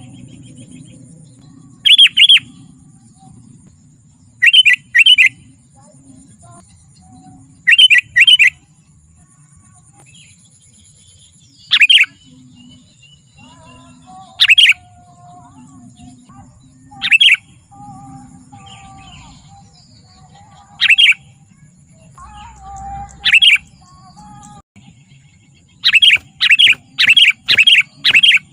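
Sooty-headed bulbul (kutilang) calling loudly. Its short, sharp chirps come every two to three seconds, at first in pairs, then singly, and near the end in a quick run of about eight.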